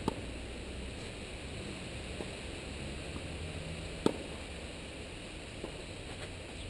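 Tennis racket hitting the ball in a rally: two sharp pops, one right at the start and a louder one about four seconds later, from the near player's strokes, with fainter pops between them from the far end of the court. A steady hiss runs underneath.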